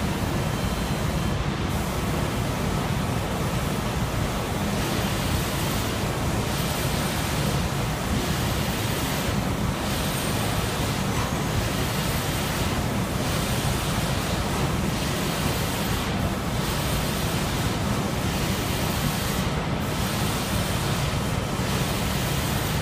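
Steady rushing noise of a spray booth running, its air extraction and reciprocator-mounted spray guns blowing coating onto the parts, with a deep low rumble under a hiss. The hiss dips briefly every few seconds.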